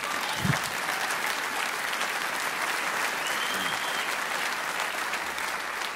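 Live theatre audience applauding a stand-up comedian's line: steady, even clapping.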